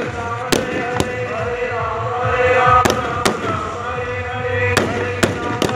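Firecrackers going off in sharp, irregular bangs, about seven in a few seconds, during a fireworks display. A steady droning tone runs underneath.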